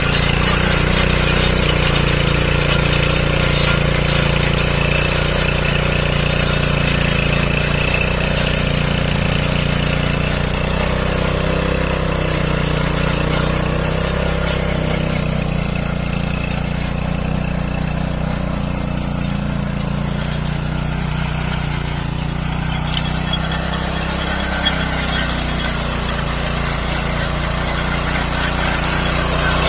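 Small engine of a walk-behind cultivator running steadily at an even pace.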